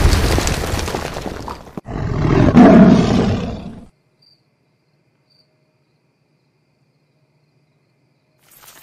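Big-cat roar from a giant cartoon tiger, about two seconds long and starting about two seconds in, following the fading tail of a deep boom. It cuts off after about four seconds, leaving near silence.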